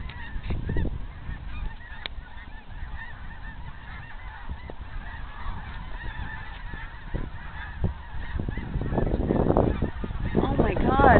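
A huge flock of geese calling in flight overhead: a constant chatter of many overlapping honks, louder from about nine seconds in.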